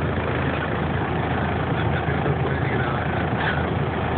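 Heavy rain falling on a car with its engine running, heard from inside the cabin: a steady dense hiss over a low engine hum.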